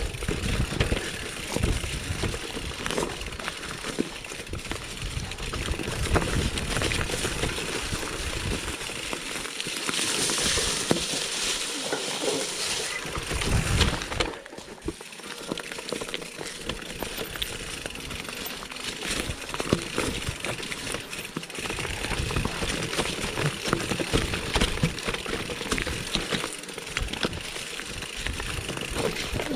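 Mountain bike rolling down a rough dirt and stone trail: tyres on loose ground with constant rattles and knocks from the bike over the bumps. A louder hiss rises for a few seconds near the middle.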